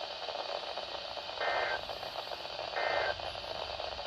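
Emergency Alert System end-of-message data tones: short buzzy digital bursts about a second apart, the third starting right at the end, over steady radio hiss.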